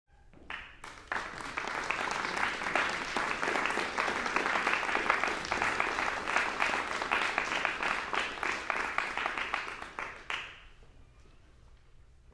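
Audience applauding, dying away about ten seconds in.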